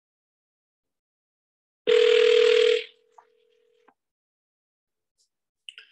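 Ringback tone of an outgoing phone call that is not being answered: one ring about two seconds long, loud with hiss over it for its first second, then fainter. A couple of faint clicks near the end.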